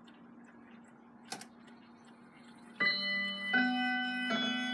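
Howard Miller Worthington mantel clock ticking faintly, with a single click a little over a second in. About halfway through its chime starts: three ringing notes about three-quarters of a second apart, each left to ring on under the next, opening the ten o'clock hour chime.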